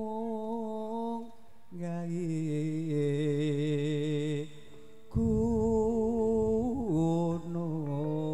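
A male vocalist sings long held notes with a wavering vibrato in Javanese karawitan style, in phrases with short breaks between them. A low rumble sounds beneath the voice for about two seconds past the middle.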